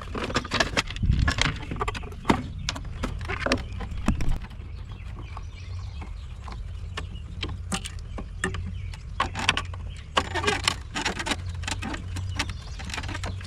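Irregular clicks, knocks and clatter of a juicer's plastic and metal parts and hand tools being handled during disassembly, over a steady low rumble.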